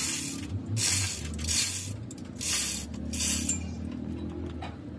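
Five short hissing bursts of compressed air, each under half a second, in quick succession over the first three and a half seconds, over a low steady hum.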